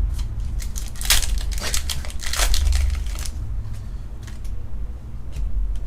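Foil Pokémon booster pack crinkling and being torn open, with two longer rips about a second and two to three seconds in and scattered small clicks of cards and wrapper being handled, over a steady low hum.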